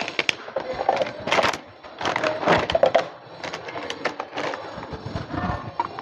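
Crinkling and rustling of a plastic food packet being handled and opened, in irregular crackles.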